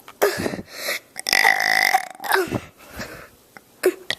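A young child burping several times: a short burp, then a long drawn-out one lasting nearly a second, then another short one.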